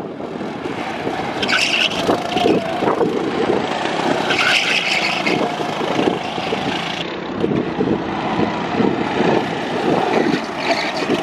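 Small petrol go-kart engines running on track, their pitch rising and falling.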